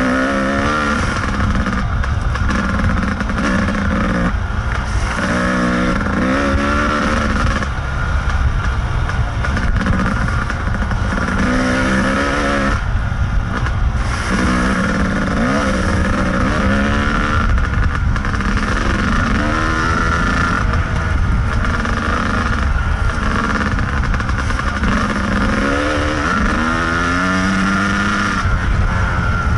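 Kawasaki KDX220 two-stroke single-cylinder dirt bike engine under riding load, its pitch climbing in repeated rising sweeps and dropping back as the throttle is worked, with a constant low rumble beneath it.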